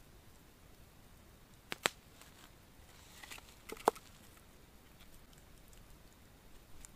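A few sharp, dry snaps and clicks of thin sticks being handled and broken by hand at a small campfire: two quick snaps about two seconds in, lighter clicks after, and the loudest snap just before four seconds.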